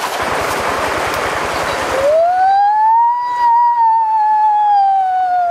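A loud rushing noise for about two seconds, then one long wailing cry from a child that rises in pitch and slowly falls again over about four seconds.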